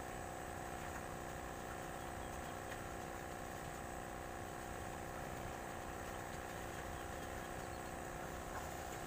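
Small battery-powered aerator pump on a live-bait bucket, humming steadily as it bubbles air into the water. A few faint ticks sound over it.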